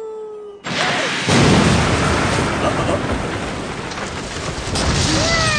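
Anime sound effect of a giant ball of water magic being hurled and striking: a sudden loud crash about half a second in, then a long rushing, splashing noise like a heavy downpour that slowly eases.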